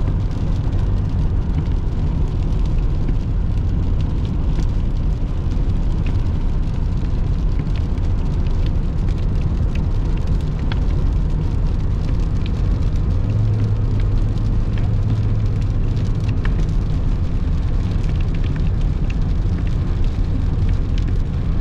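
Car cabin noise while driving on a rain-soaked road: a steady low rumble from engine and tyres, with a hiss of road spray and faint scattered ticks.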